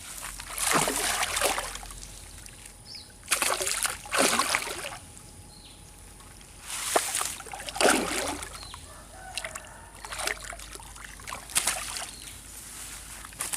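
Paddle strokes splashing in the water beside a small boat: a series of short splashes every couple of seconds, with faint bird calls between them.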